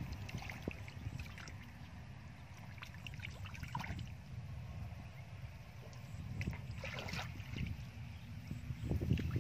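Hands splashing and sloshing in shallow muddy water while grabbing fish, over a steady low rumble. Clusters of splashes come about 3.5 s in and about 7 s in, and a louder one comes near the end.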